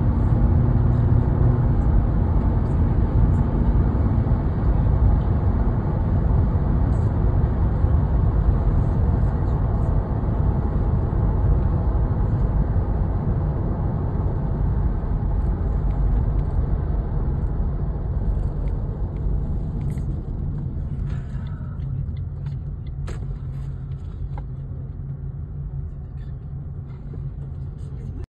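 Car cabin road noise while driving on a highway: a steady low rumble of tyres and engine that eases off as the car slows in the second half, with a few light clicks near the end.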